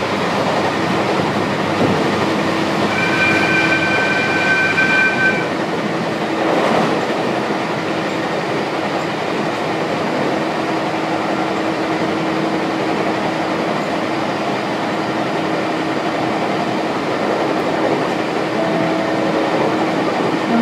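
Electric local train running at speed, heard from inside the passenger car: a steady rumble of wheels and running gear with a low even hum. About three seconds in, a high two-note tone sounds for two or three seconds.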